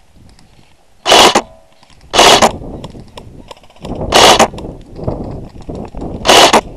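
Airsoft gun firing four short, loud bursts, one to two seconds apart.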